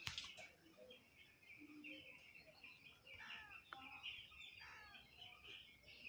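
Faint, continual peeping of a flock of young broiler chicks in the poultry shed: many short, high chirps overlapping one another.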